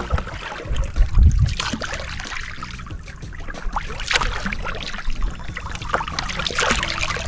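Wooden paddle dipping and pulling through river water beside a wooden canoe, with splashes and water trickling off the blade. Splashes stand out about four seconds in and again near the end, and a low rumble comes about a second in.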